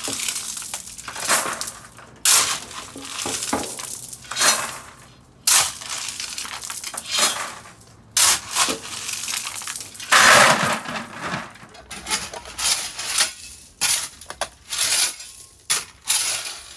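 Shovel digging into gravel: a crunching scrape about every one to one and a half seconds. A thin, steady high whine joins about twelve seconds in.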